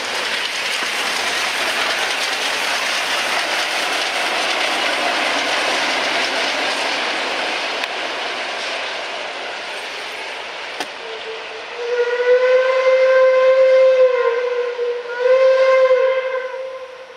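Steady rushing rolling noise of a passing train. About twelve seconds in, a steam locomotive whistle sounds a long steady note, then a second, shorter blast after a brief break.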